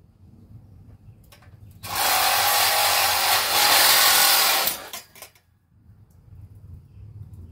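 A cordless drill runs in one steady burst of about three seconds, starting about two seconds in, with a few short clicks as it stops.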